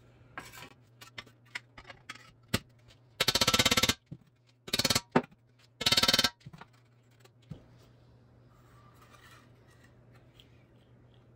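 Spring-loaded hammering chisel fitted with a ball tip, fired in three short bursts of very fast taps against a metal dash capping to knock out its dents. Lighter clicks and taps come before the bursts as the tool is set against the piece.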